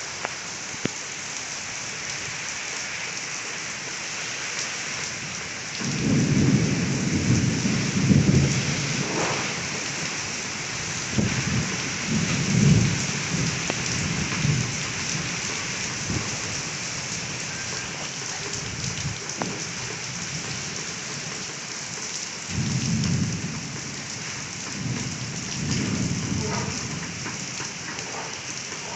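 Heavy rain falling steadily with a constant hiss, with low rolls of thunder rumbling through it: a long roll about six seconds in, another a few seconds later, and shorter ones near the end.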